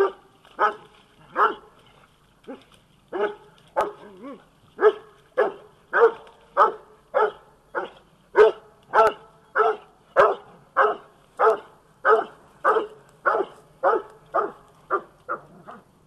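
Coonhounds barking treed at the base of a tree, a steady chop of loud barks about one and a half to two a second: the dogs have a raccoon up the tree.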